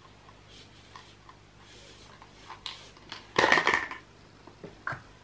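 Small clicks and rustles of a baby handling and mouthing a small plastic toy, with one loud, noisy burst under a second long about three and a half seconds in.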